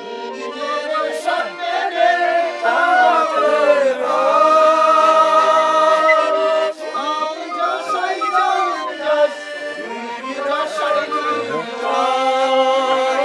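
Music with singing: long, held notes that waver and bend.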